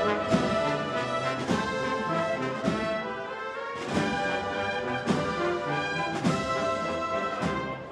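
Spanish processional wind band playing a Holy Week march, brass to the fore over held chords, with a drum stroke about once a second.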